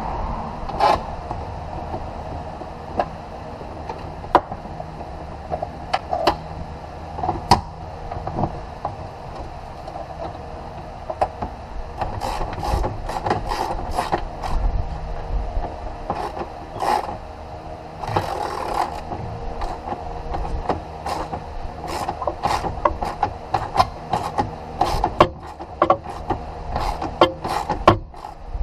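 Irregular metallic clicks and knocks of hands and tools working on vehicle parts, coming more often in the second half, over a steady low hum.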